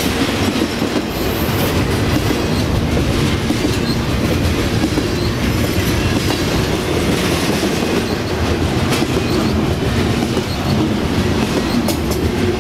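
Double-stack container cars of a freight train rolling past close by: a loud, steady rumble of steel wheels on the rails with a running clatter.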